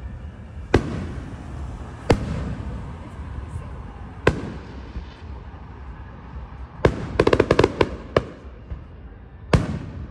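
Fireworks going off overhead: single sharp booms every second or two, and a rapid rattle of many small bangs lasting about a second, a little past the middle.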